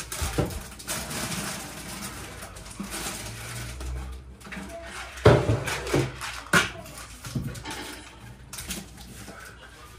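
Rustling packaging and clattering as groceries are put away in kitchen cupboards, with a few sharp knocks, the loudest about five and six and a half seconds in.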